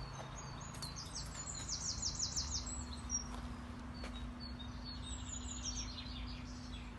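Small birds singing: quick runs of high, falling chirps about a second in and again about five seconds in, with scattered single chirps between, over a low steady hum.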